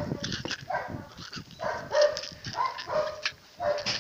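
A dog barking repeatedly in short, excited barks, several in quick succession.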